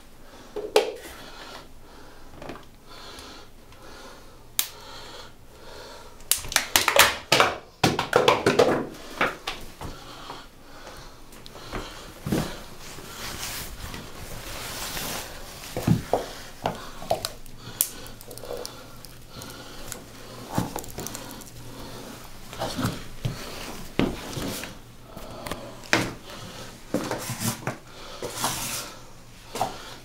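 Double H combat jump boots stomping and crushing a plastic microwave cup on a tile floor: cracking crunches and heavy boot impacts. They come thick and loud about six to nine seconds in, then as scattered single stomps and cracks through the rest.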